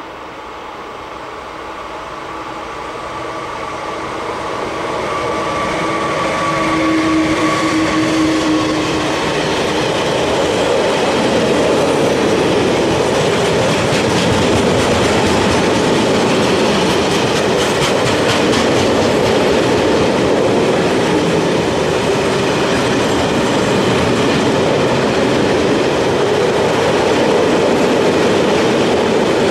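DB Schenker Class 189 electric locomotive approaching and passing with a steady tone from its traction equipment, growing louder over the first few seconds. A long train of tank wagons then rolls by with a steady rumble and wheels clattering over the rail joints.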